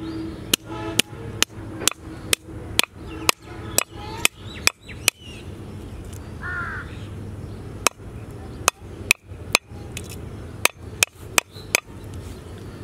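Chopping with a blade, about two sharp strokes a second for the first five seconds, then a few scattered strokes near the end. A bird calls once in the middle.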